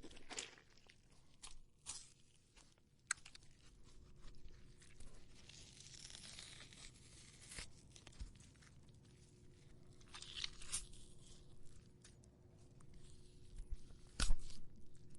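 Melon rind torn apart by hand close to a microphone: irregular wet crackling and ripping, with a sharp loud crack near the end.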